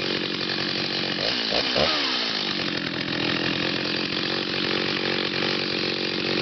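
Stihl 029 Super two-stroke chainsaw running steadily at high revs, with its pitch briefly shifting and dropping about two seconds in before it settles again. The engine has just been rebuilt after a scored cylinder and is still breaking in on a 20:1 mix.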